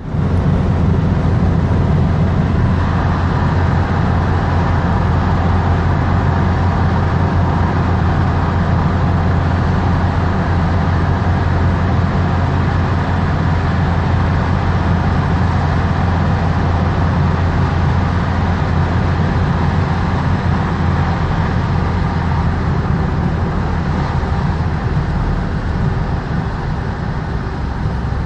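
Steady low rumble of road and engine noise heard from inside a car's cabin, driving at about 60 km/h through a road tunnel.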